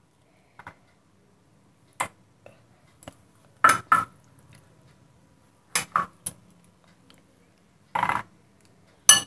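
A spoon clinking and scraping against a tall drinking glass and an ice cream carton as vanilla ice cream is scooped into the glass: about eight short clinks and knocks spread out, with quiet between.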